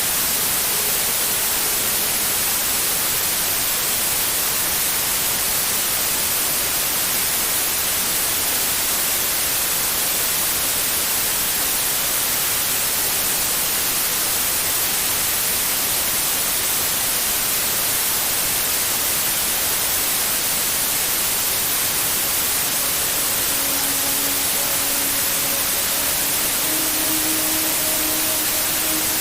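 Steady white noise: a constant, even hiss. A few faint sustained tones come in near the end.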